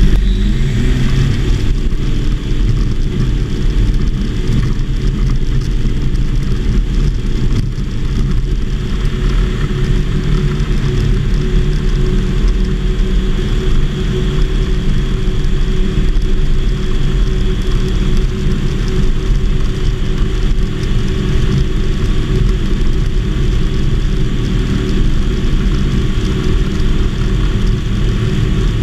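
Light aircraft engine and propeller of a homebuilt Volksplane VP-2 running steadily at takeoff power, heard from inside the cockpit, as the ski-equipped plane takes off from snow and climbs out.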